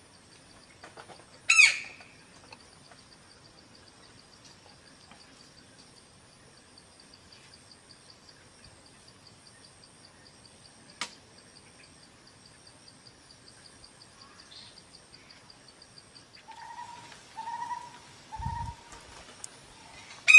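Forest birds calling: a loud, sharp call about a second and a half in and another at the very end, and three short low hoots near the end. Under them runs a steady high insect drone that stops about sixteen seconds in.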